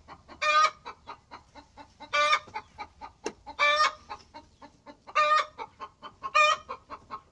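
Chicken clucking: a steady run of soft, short clucks broken by five louder, higher calls spaced about a second and a half apart.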